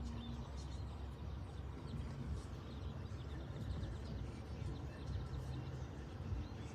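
Many small birds chirping and tweeting at once, short high calls overlapping all through, over a steady low rumble.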